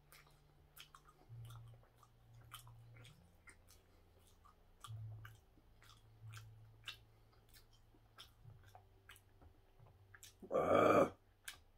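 A person chewing a soft steamed bun (hoppang): a scatter of small, wet mouth clicks. About ten seconds in comes a short, loud rush of noise.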